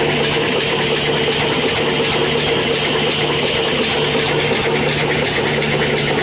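Old stationary diesel oil engine running steadily, driving a wheat flour mill, with an even, regular ticking beat over a steady hum.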